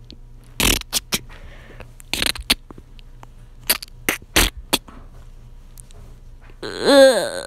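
A run of sharp clicks and knocks, some in quick pairs. Near the end comes a short vocal sound sliding down in pitch.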